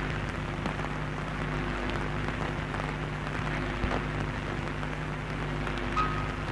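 Radio transmission static: a steady crackling hiss over a low electrical hum, with a short high beep near the end.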